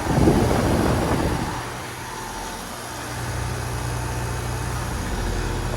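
Lennox Merit heat pump outdoor unit running in cooling mode: a steady hum of the compressor and condenser fan. A louder rush of noise covers the first second and a half.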